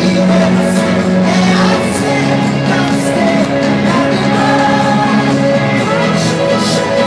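Live electro-pop band playing through a concert PA, with held synth chords that change every couple of seconds and singing over them.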